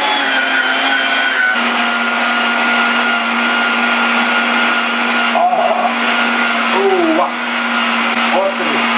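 Electric meat grinder running steadily while grinding hot red chili pepper: a constant motor hum with a thin high whine above it.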